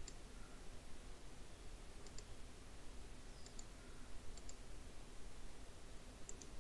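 Computer mouse button clicking: about five quick double ticks, each a press and release, spread over several seconds, over a faint steady low hum.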